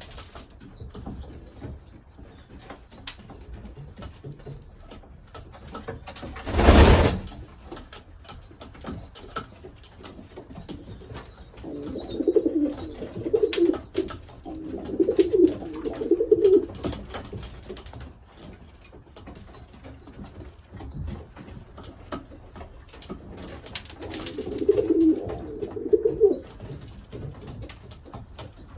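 Racing pigeons cooing in two spells, a longer one near the middle and a shorter one near the end, as a pair courts. Faint high chirps repeat throughout. A brief loud rustle, the loudest sound, comes about a quarter of the way in.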